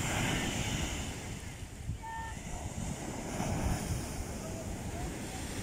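Ocean surf breaking and washing up a sandy beach, a steady rushing wash that swells again about three and a half seconds in.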